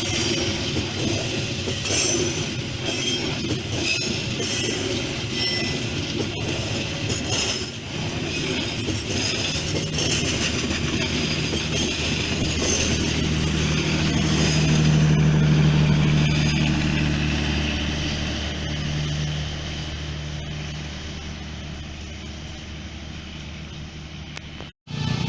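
Passenger train hauled by a CC 201 diesel-electric locomotive passing at speed: a continuous rush and rattle of wheels on rail with a low hum that swells around the middle and fades toward the end.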